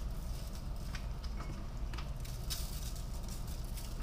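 Faint light ticks and rustles of gloved fingers sprinkling pinches of seasoning salt over raw chicken wings on a foil-lined wire rack, over a steady low hum.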